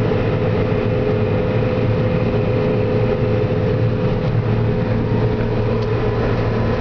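John Deere 9770 STS combine harvester running steadily under load while harvesting rice, heard from inside the cab: an even machine drone with a low hum and a steady mid-pitched whine.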